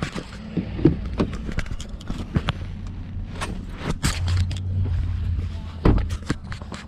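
Fingers brushing and tapping on a handheld phone as it is carried, giving a string of irregular clicks and rustles, over a low steady hum that swells for a couple of seconds in the middle.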